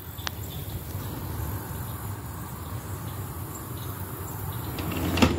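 Crickets chirring steadily over a low rumble, with a single thump about five seconds in.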